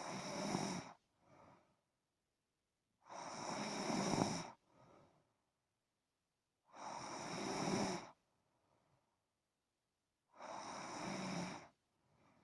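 A person snoring in sleep: four loud snores, each about a second long and coming roughly every three and a half seconds, each followed by a brief, much fainter breath.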